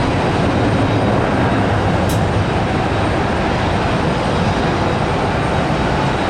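Airbus A321neo's twin turbofan engines at takeoff thrust: a loud, steady rush of jet noise, with one brief high click about two seconds in.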